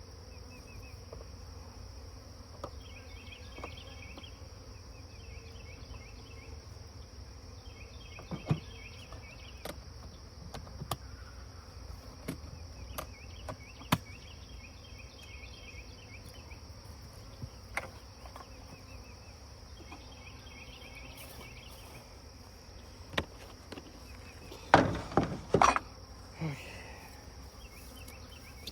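Honeybees buzzing around the hive, with a steady insect hum. Scattered sharp clicks and knocks run through it, with a cluster of louder knocks about 25 seconds in.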